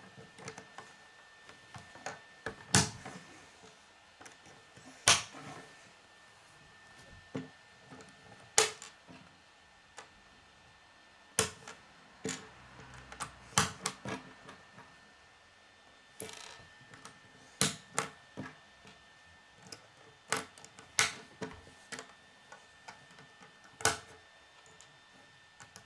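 Plastic K'Nex rods and connectors clicking into place and clacking against a wooden tabletop: a dozen or so sharp, irregular clicks, with a faint steady high hum underneath.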